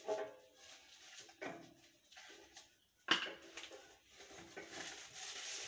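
Knocks and clatter from hands working on a newly unboxed forage chopper, with one sharp knock about three seconds in and a longer rustling stretch near the end.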